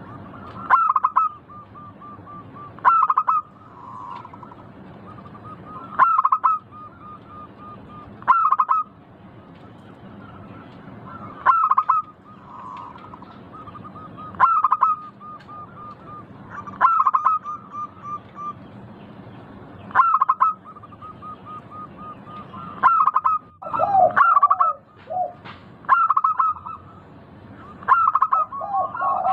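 Zebra dove (perkutut) cooing its song again and again, about every three seconds: each phrase is a loud opening coo followed by a quick run of short, even coos. Lower coos join in about two-thirds of the way through and again near the end.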